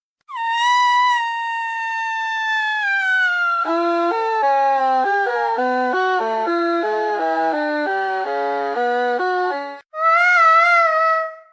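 Toddler crying: a long wail that slowly falls in pitch, then several seconds of choppy sobbing with the pitch jumping quickly up and down, then a brief break and another wail near the end.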